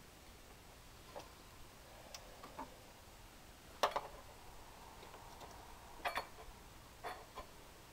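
Sparse light clicks and knocks of metal parts being handled at the front of a Ford 2.3L four-cylinder engine as a pulley is worked loose. The loudest is a double knock about four seconds in, with another pair about six seconds in.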